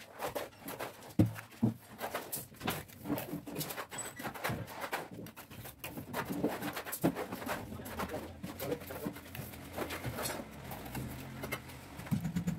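Steel hand trowel scraping and slapping wet cement plaster onto a brick wall in irregular strokes and knocks, the loudest a sharp knock about a second in.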